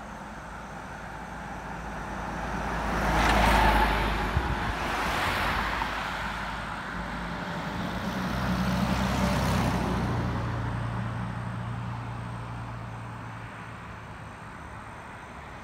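Road traffic heard from a moving car: steady tyre and engine noise, with two vehicles passing, the louder one about three and a half seconds in and another around nine seconds, each swelling and fading away.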